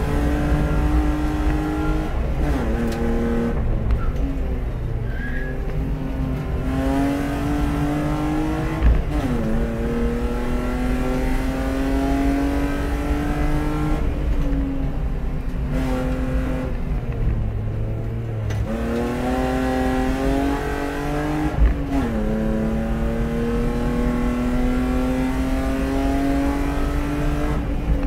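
BMW E36 320i race car's 2.0-litre straight-six pulling hard, heard from inside the cockpit: the engine note climbs steadily under full throttle and drops sharply at each gear change, with a lift off the throttle midway before it picks up again. A couple of sharp knocks come with the shifts.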